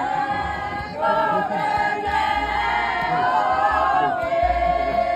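A group of people singing together, several voices holding long notes in harmony. Near the end the singing settles on one long held note.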